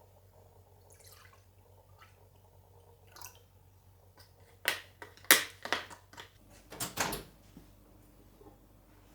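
Quiet room with a few faint soft sounds, then a cluster of sharp clicks and knocks about halfway through, like small objects being handled.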